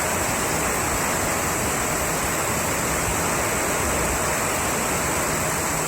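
Heavy rain pouring down in a steady, unbroken rush of water.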